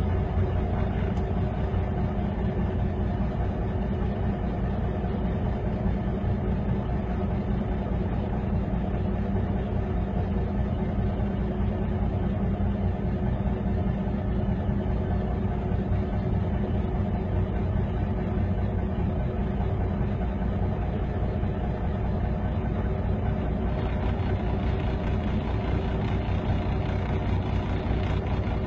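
A heavy vehicle engine running steadily at an even speed, a constant low hum with no change in pitch.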